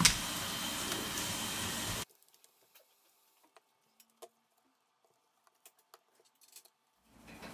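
A steady hiss for about two seconds that cuts off suddenly. Then near silence with a few faint clicks of a plastic guitar pick prying the clips of the Samsung Galaxy A70's plastic mid-frame.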